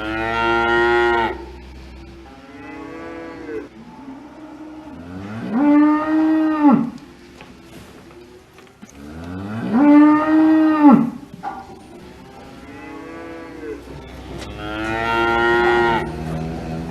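Cattle mooing: about six long moos a few seconds apart, two of them fainter, the loudest sliding up in pitch at the start and dropping off at the end.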